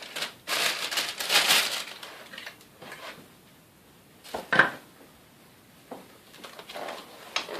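Packaging rustling and crinkling as vacuum cleaner parts are lifted out of their box, with one sharp knock about four and a half seconds in.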